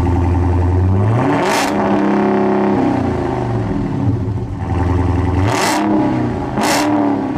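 Police car siren sounding: a loud, low-pitched tone that steps and glides up and down in pitch, broken by three short bursts of noise.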